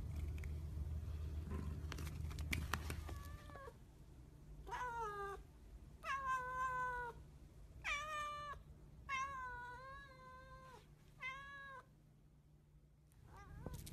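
White cat purring and chewing on a toy for the first few seconds, then meowing repeatedly: about seven separate meows, one of them longer and wavering.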